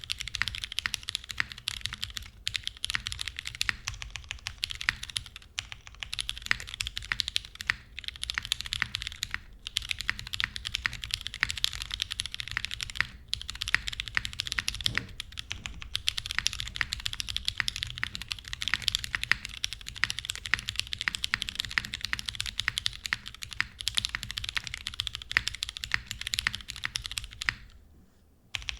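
Fast, steady typing on a Geonworks F1-8X mechanical keyboard with an aluminum plate, lubed Pewter light tactile switches and GMK keycaps, a dense run of keystroke clacks with brief pauses every few seconds. The typing stops about a second before the end.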